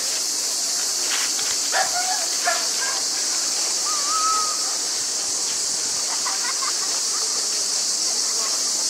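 A steady high-pitched hiss, with a few faint short chirps and brief distant voices over it.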